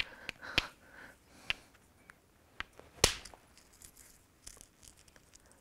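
Hammerstone striking a Swan River chert core in hard hammer percussion: several sharp stone-on-stone clicks, the loudest about three seconds in, with a few fainter ticks after it.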